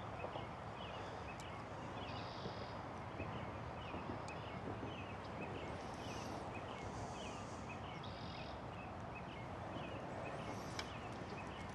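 Outdoor background of a steady hiss, with a short chirp repeated about twice a second and a few higher calls here and there.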